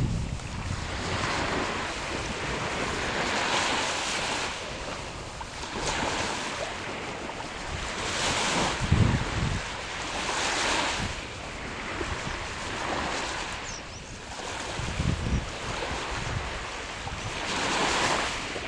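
Small waves washing onto a beach, swelling and falling back every two to three seconds, with low wind rumble on the microphone a couple of times.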